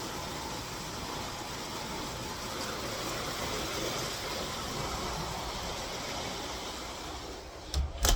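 Heavy rain falling, a steady hiss. Near the end come a few sharp knocks, and after them the rain sounds quieter.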